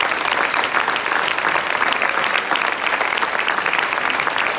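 Large audience applauding steadily: a dense, even patter of many hands clapping.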